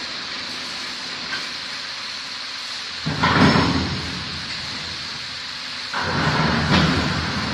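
Spindle-less veneer peeling lathe rounding a log over a steady machine hum. About three seconds in the knife bites into the turning wood with a loud rough rasp that fades after about a second, and it cuts again from about six seconds on.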